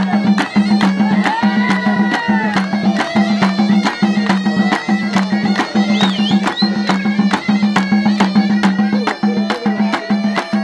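Kabyle iḍebbalen music: a ghaita (reed shawm) plays a wavering, ornamented melody over a steady beat on the t'bel drum.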